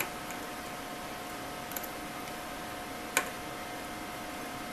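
A few small clicks and taps as a soldering iron tip and fingers work a component on a circuit board, the sharpest about three seconds in, over a steady electrical hum.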